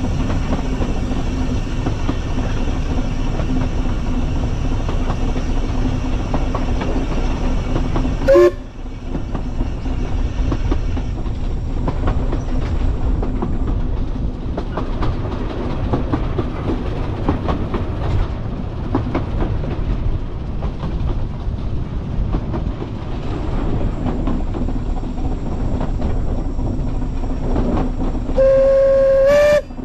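Narrow-gauge steam locomotive running, with steady rumble and rail clatter; its whistle gives a short blast about eight seconds in and a longer blast of over a second near the end, rising in pitch just before it stops.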